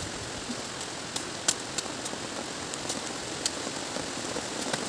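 Leaves and twigs rustling as they are handled, with a handful of sharp snaps and clicks over a steady hiss.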